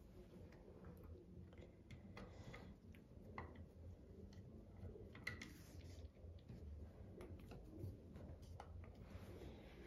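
A few faint, scattered clicks of a screwdriver turning out screws from a sewing machine's plastic housing, the clearest about five seconds in, over quiet room tone.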